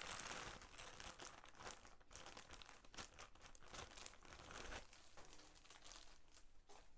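Clear plastic packaging bag crinkling as it is handled and opened: faint, irregular crackles with small clicks, a little louder at the start and again around five seconds in.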